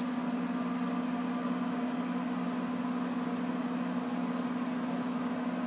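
Video projector's cooling fan running with a steady whirring hum and a low steady tone.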